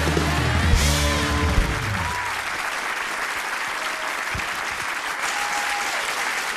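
A short music sting with a strong bass line ends about two seconds in, under and followed by a studio audience applauding steadily.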